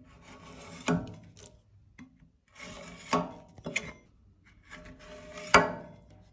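Metal scraper blade scraping thick built-up candle wax off the rim of a dipping tank, in three long scrapes. Each scrape has a sharp click partway through, and the last click is the loudest.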